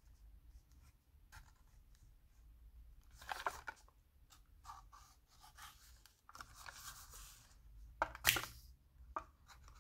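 Craft knife blade scraping and cutting along the edge of a plastic Hot Wheels blister pack on its cardboard card, in a few short bursts of scratching; the loudest comes about eight seconds in.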